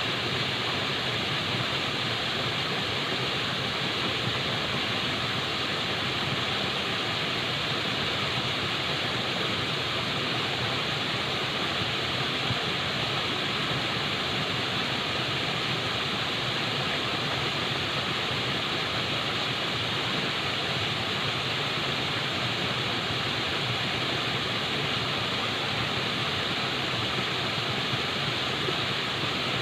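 Falling water making a steady, even rush that does not change.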